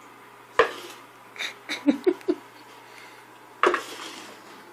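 A cup knocking and clattering on a hardwood floor as cats bat at it and one gets its head stuck inside. A sharp knock about half a second in, a quick run of about five knocks around two seconds in, and another sharp knock near the end.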